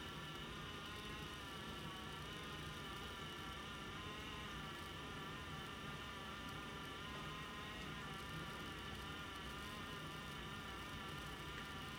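Steady faint background hum and whine: several high tones that waver slightly in pitch over a low drone, with no pauses.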